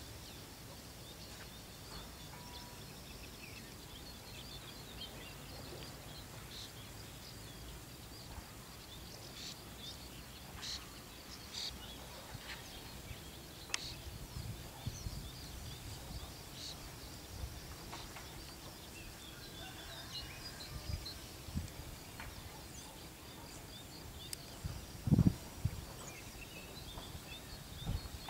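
Open-air rural ambience with small birds chirping and twittering on and off throughout. A few low thumps come through as well, the loudest about 25 seconds in.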